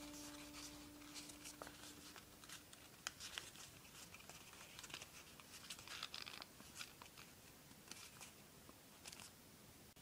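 Faint crinkling and crackling of a sheet of plain 80 g printer paper being folded and creased by hand, in scattered small crackles.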